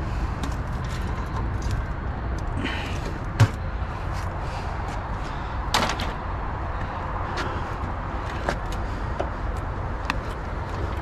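Scattered clicks and knocks from wiring and parts being pulled out of a scrapped printer, with one sharp knock about three and a half seconds in, over a steady low rumble.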